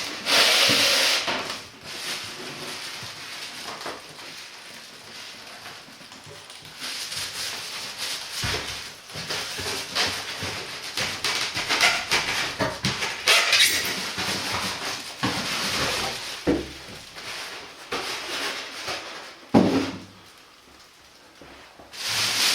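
Plastic bag crinkling and rustling as it is pulled off a large popcorn machine, with a few knocks of the machine being handled.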